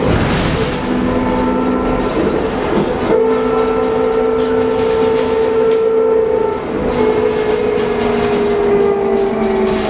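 Proterra Catalyst battery-electric bus's drive motor whining over road noise, heard inside the cabin. The whine holds a steady pitch, then slides slowly down over the last few seconds as the bus slows.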